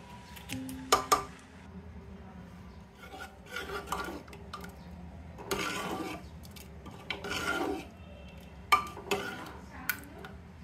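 Steel ladle stirring thick curry in a metal pressure cooker, scraping and rubbing against the pot in several short strokes. A couple of sharp scissor snips about a second in, and the ladle clinks against the pot near the end.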